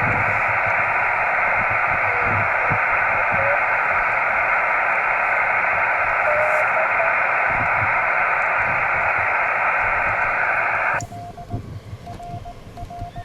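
Shortwave-style receiver hiss from a homebuilt 10 GHz microwave ham radio station's receiver, with faint tones inside it. About 11 seconds in the hiss cuts off abruptly and Morse code beeps follow.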